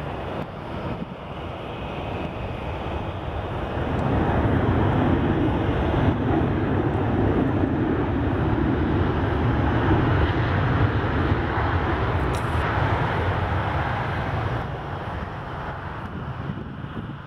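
Boeing 737-700's CFM56 jet engines running as the airliner rolls along the runway. The noise swells about four seconds in, holds, then eases off near the end.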